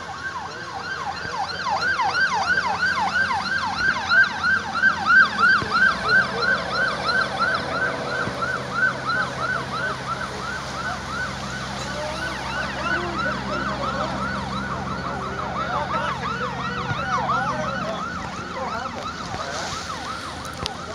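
Emergency siren in a fast yelp, its pitch sweeping up and down about three times a second, loudest a few seconds in. A low steady engine drone joins it from about six seconds in until near the end.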